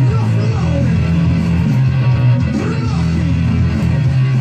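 Rock music playing: a distorted guitar-band track with bass, with a voice singing over it.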